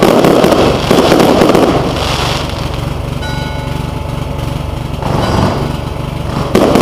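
Aerial fireworks bursting and crackling overhead in a dense volley for about the first two seconds. The volley eases into a lull with a steady low hum underneath, and loud bursts return near the end.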